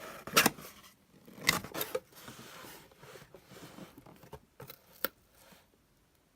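Packaging being handled and opened: a series of sharp clicks and snaps with rustling and scraping between them, dying away near the end.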